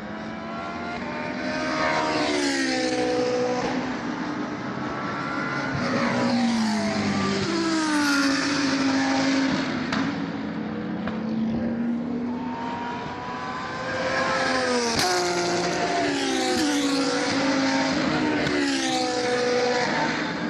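GT3 race cars passing at speed one after another, each engine note dropping in pitch as the car goes by. Several passes come in quick succession, some overlapping.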